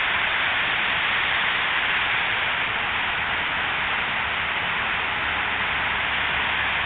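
Rows of fountain jets spraying up and splashing down into a pool: a steady rushing hiss of falling water.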